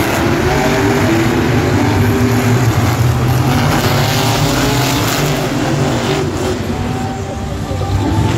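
Monster trucks' supercharged V8 engines running and revving loud, several engine notes rising and falling together.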